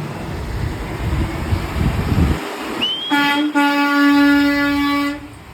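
Low rumble of a passing truck, then a truck's air horn sounds one steady blast for about two seconds and cuts off.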